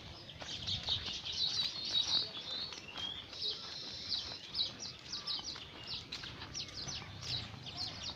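Small birds chirping and twittering: a dense run of short, high calls, with rapid trills about two seconds in and again around four seconds.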